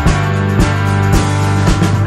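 Background music: held chords over a steady drum beat of about two strikes a second.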